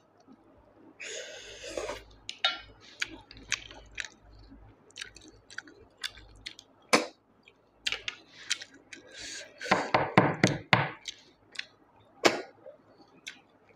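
Close-up eating sounds of a person sucking snails from their shells out of a curry: sharp sucking slurps and wet mouth clicks with chewing, the slurps coming in a cluster near the end.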